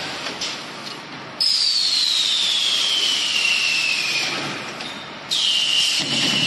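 Automatic cardboard tube cutting machine at work: a high whine cuts in suddenly about a second and a half in and slides steadily lower in pitch over about three seconds, then a second sudden high whine starts near the end and holds steady.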